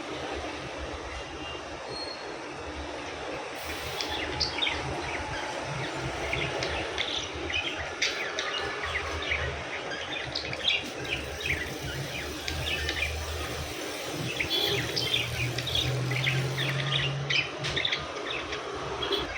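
Budgerigars chirping and chattering: many short, high chirps in quick succession, getting busy about four seconds in, over a steady background hiss and low hum.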